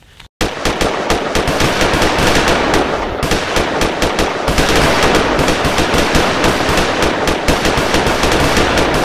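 Sustained rapid automatic gunfire, a dubbed-in machine-gun sound effect, starting abruptly about half a second in and firing continuously without a pause.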